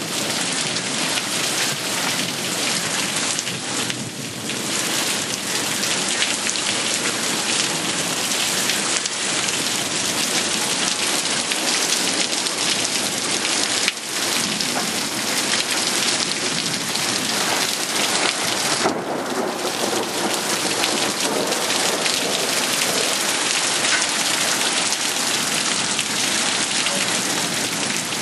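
Heavy rain falling steadily during a thunderstorm: a dense, even hiss of downpour on the surfaces around.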